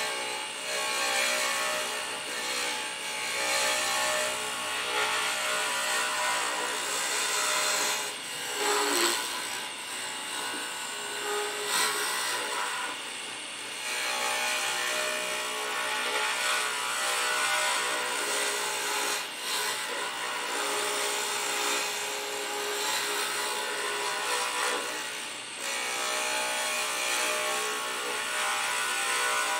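Wood lathe running while a carbide turning tool cuts a spinning pen blank of green-dyed stabilized wood: a steady scraping hiss of the cut over the hum of the lathe motor.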